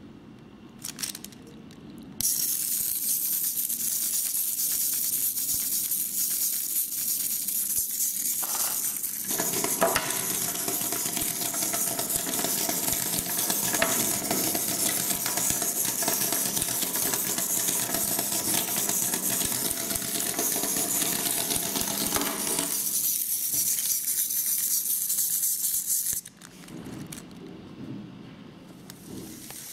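Hexbug Larva robotic toy switched on and crawling on a tabletop: its motor buzzes and its plastic body rattles steadily against the surface. It starts suddenly about two seconds in and cuts off suddenly a few seconds before the end.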